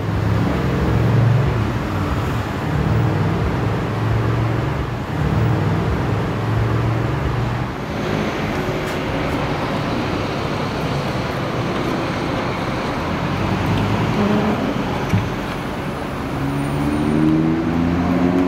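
City street traffic: motor vehicle engines running and passing, a steady rumble, with a single sharp knock about fifteen seconds in.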